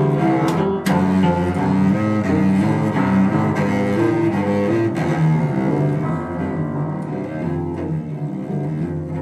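Free-improvised cello and piano duo, with the cello's low bowed notes to the fore. A few sharp struck attacks come in the first second, and the playing grows somewhat quieter in the second half.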